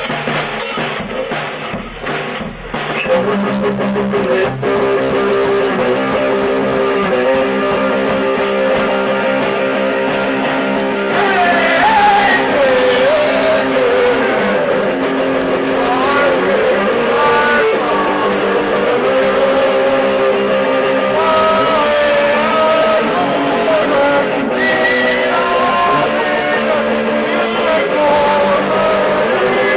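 Live amateur band music: a drum beat and sustained chords, with a wavering lead melody coming in about eleven seconds in.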